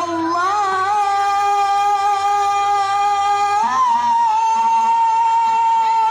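A child's solo voice chanting an Islamic recitation in long held notes, each opening with a short ornamented waver before settling, with a shift to a new note about four seconds in.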